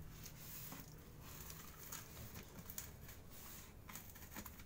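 Faint scraping and crackling of a small knife cutting packing tape along the seams of a cardboard box, a string of short scrapes and clicks.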